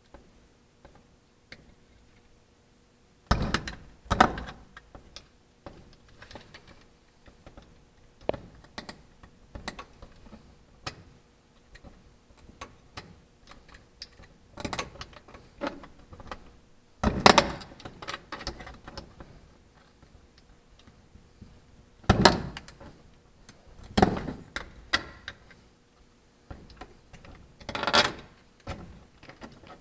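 A snap-off utility knife cutting and scraping at aircraft fabric glued over an aluminium plate. Irregular clicks and knocks begin about three seconds in, with a few harder scraping strokes of about a second each.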